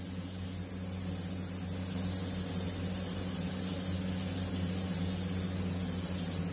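Gravity-feed airbrush spraying with a steady air hiss, over a steady low hum.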